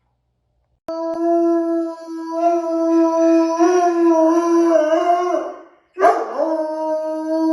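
A dog howling: a long, steady howl begins about a second in and lasts some five seconds, then a second howl starts with a downward swoop in pitch and holds.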